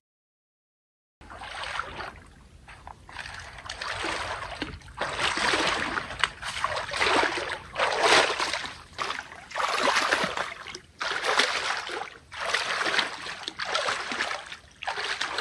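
Silent for about the first second, then a person wading knee-deep through swamp water: a sloshing swish with each stride, about one a second.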